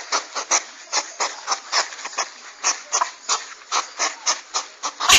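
Hedgehog huffing and snuffling: a fast run of short, breathy, noisy puffs, several a second, with a sharp click near the end.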